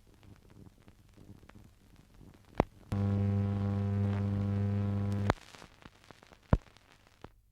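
Steady electrical mains hum with a buzzy edge, lasting about two and a half seconds and starting and stopping abruptly with clicks. Another sharp click follows about a second later, over faint tape hiss, typical of a gap between adverts on an old domestic video recording.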